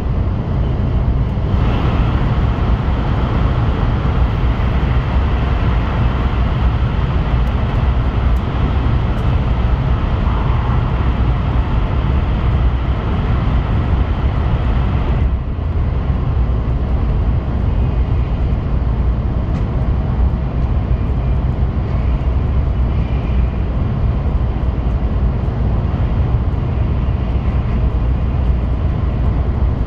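Running noise of an N700S Shinkansen at speed, heard inside the passenger cabin: a steady, loud low rumble with a rushing hiss above it. The sound shifts as the train runs through a tunnel, brightening about a second and a half in and changing again around the middle when the train comes back out.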